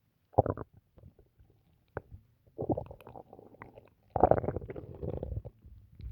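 Human stomach gurgling and rumbling after drinking water, in irregular bursts: a short one near the start, a longer one about two and a half seconds in, and the loudest about four seconds in. A short sharp click comes about two seconds in.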